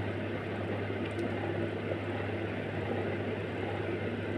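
Steady low hum under a constant rushing background noise, with a faint tick about a second in.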